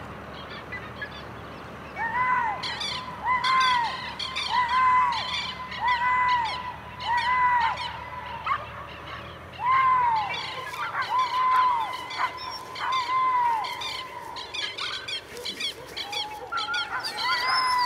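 Repeated animal calls: a short call that rises and falls in pitch comes about once a second, with quick higher bird chirps over it.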